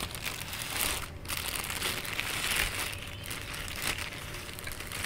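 Clear plastic bag crinkling and rustling as hands handle it, a continuous run of small crackles.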